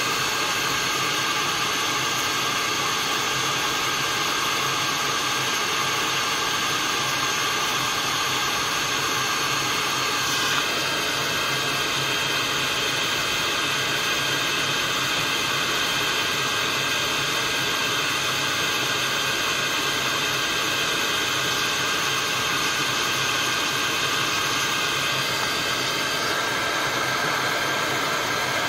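Hot-air dryer blowing steadily: an even hiss with a faint whine, its tone shifting slightly about ten seconds in.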